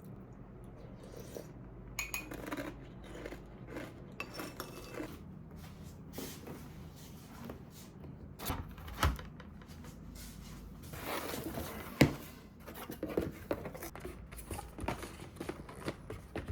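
Packaging being handled and opened: crinkling and rustling with scattered clicks and taps, and one sharp knock about twelve seconds in.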